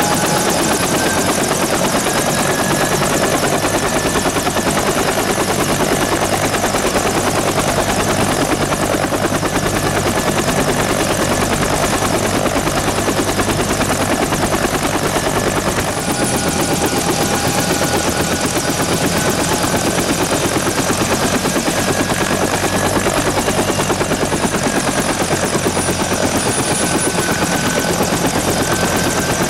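Bell UH-1H Huey helicopter in flight: the fast, steady beat of its two-bladed main rotor over the whine of its Lycoming T53 turboshaft, the whine drifting slightly up and down in pitch.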